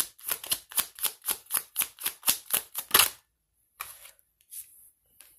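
Tarot cards being shuffled by hand: a quick, even run of card slaps, about six a second, that stops with a louder snap about three seconds in. A few soft card rustles follow as cards are drawn from the deck.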